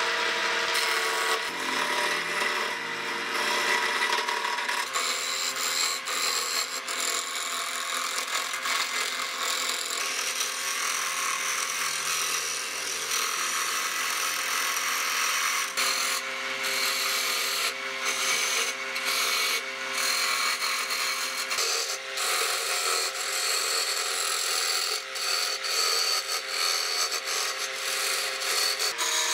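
Wood lathe spinning a wooden blank while a hand-held turning chisel cuts into it: a steady scraping hiss of wood being shaved, with a steady hum under it. In the second half the scraping breaks off briefly several times.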